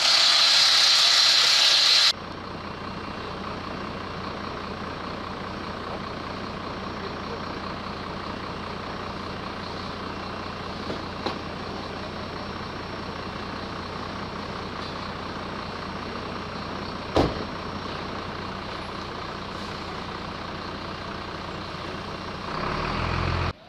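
A loud hiss for about two seconds, then a steady mechanical hum. A single click sounds about two-thirds of the way through, and a louder low swell comes just before the end.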